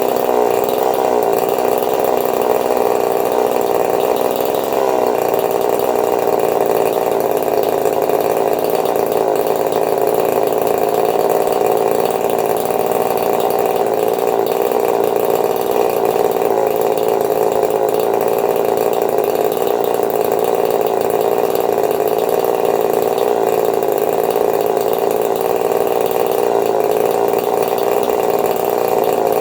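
Custom-built two-stroke chainsaw engine, fitted with a swapped crankshaft and piston, running steadily on the bench.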